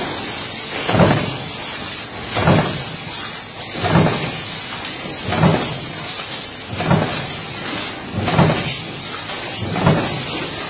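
Automatic stamping press running a progressive die on sheet metal, cycling steadily with a stroke about every second and a half (seven strokes) over a continuous machine hum.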